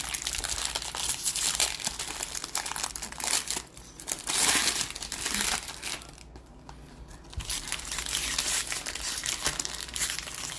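Plastic wrappers of trading-card packs crinkling as they are handled, with a brief lull about six seconds in.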